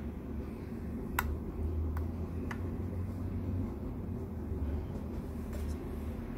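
Three short, sharp clicks in the first half as a metal-housed electronic ignition plate is handled and seated in an engine's ignition housing, the first the loudest, over a steady low hum.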